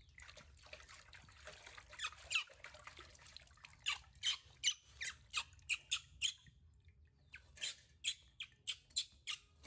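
A baby macaque making high-pitched squeaks again and again in quick runs while it is being washed. Water trickles and drips faintly into a steel basin underneath.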